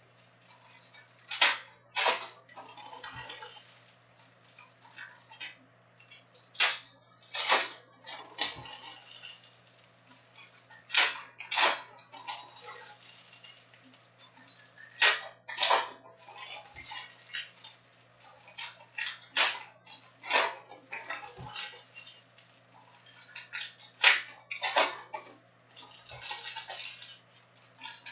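Stiff Topps Chrome trading cards being handled: sharp snaps and slaps every few seconds, often in pairs about half a second apart, with soft sliding and rustling of card stock between, over a steady low hum.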